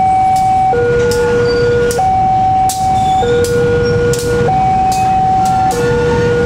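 Railway level-crossing alarm sounding its two-tone warning, a high and a low tone alternating about every second and a quarter. Under it, a diesel locomotive rumbles slowly across the crossing, its wheels knocking over the rail joints at irregular intervals.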